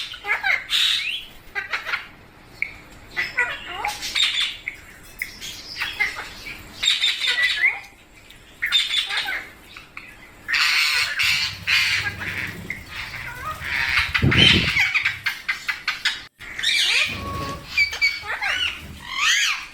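Young rose-ringed (Indian ringneck) parakeets squawking and chirping over and over, many short calls that rise and fall in pitch. There is a louder low thump about two-thirds of the way in.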